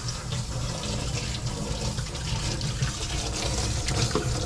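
Water running steadily from a kitchen tap into a sink, with a steady low hum underneath.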